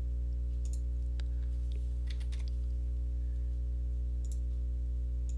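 Computer mouse clicking a handful of times, faint and irregular, over a steady low electrical hum from the recording setup.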